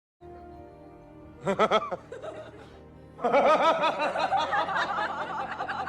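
Background music with laughter: a short burst of laughs about a second and a half in, then longer, louder laughter from about three seconds in.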